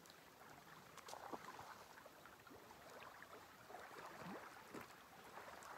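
Near silence, with faint lapping of small waves on a pebble lakeshore.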